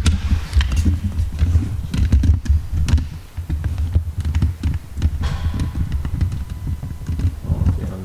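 Irregular light clicks and taps over a low rumble: handling noise from a hand-held camera being moved and adjusted.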